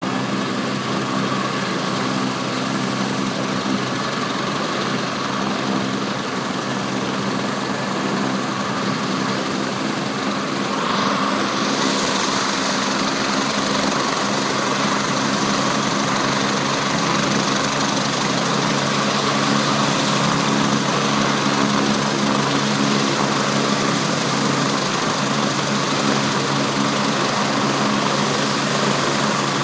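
Medevac helicopter running on the ground: a steady engine hum with a broad turbine hiss over it, growing a little louder and brighter about eleven seconds in.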